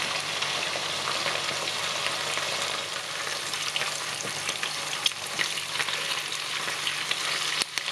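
Skin-on pork belly slices frying in shallow oil in a nonstick pan over high heat, sizzling steadily with scattered small pops and crackles from the skin. The sound breaks off briefly near the end.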